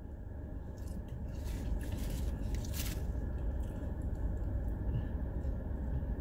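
Eating sounds: chewing a sandwich, with a cluster of short rustles and clicks about one to three seconds in. Under it is a steady low hum from the car's air conditioning running.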